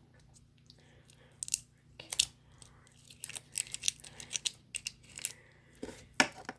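Close handling noises of a mini slime and its small container: a run of sharp crinkling and clicking sounds, busiest in the middle.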